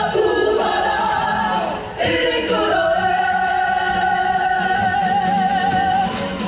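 A group of voices singing together in chorus. From about two and a half seconds in, they hold one long note with a wavering pitch.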